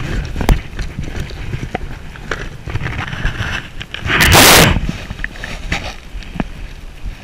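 A short, loud splash of water at the boat's side, a little over four seconds in, from a hooked largemouth bass at the surface. It sits over a low rumble and a few small knocks from handling.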